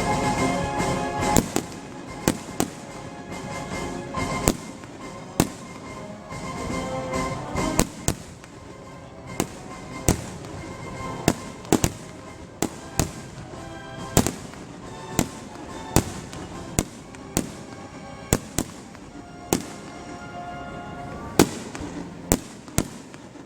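Fireworks display: sharp aerial shell bangs, irregular, about one a second, some echoing, over music that is louder in the first few seconds and quieter after.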